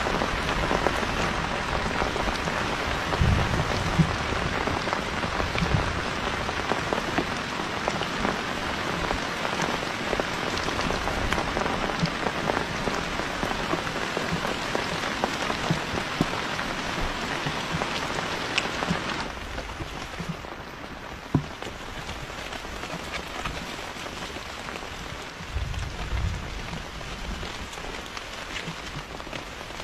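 Steady hissing noise with scattered small ticks, dropping in level about two-thirds of the way through.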